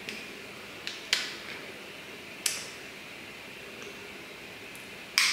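Plastic lip balm pot and its little applicator spatula being handled: a few short sharp clicks, the loudest near the end, over quiet room tone.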